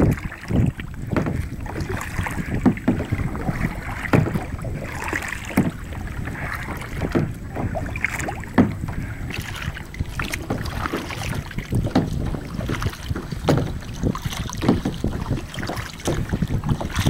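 Kayak paddling: a double-bladed paddle dipping and splashing, with irregular knocks. Wind buffets the microphone throughout.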